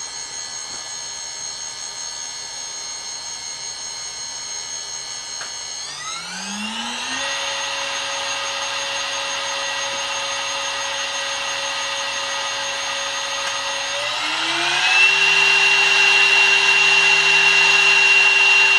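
Carbide 3D 1.2 kW air-cooled VFD spindle running free with a steady whine. It steps up in speed twice, about six seconds in and again about fourteen seconds in, each time with a quick rising whine, and it gets louder at each step.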